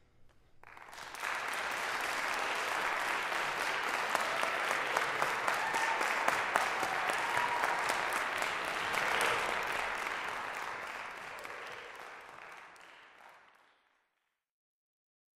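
Audience applauding, many hands clapping. It starts about a second in, holds, then tapers off and drops to dead silence near the end.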